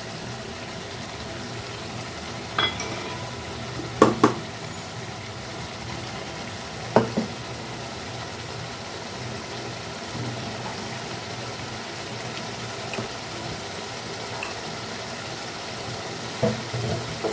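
Chicken and masala sizzling in oil in a pan while being stirred, with a few sharp knocks of the spoon against the pan. The loudest is a quick pair about four seconds in, and another comes near seven seconds.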